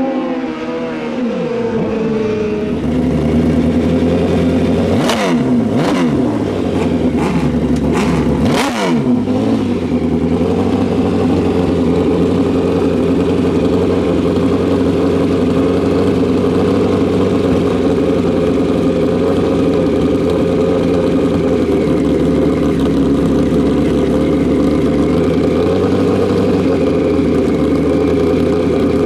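Two wheelie-bar drag-racing motorcycles idling at the starting line, their engines running steadily. There are a few sharp throttle blips around five to nine seconds in. In the first two seconds, engine pitch falls as bikes shut off far down the track.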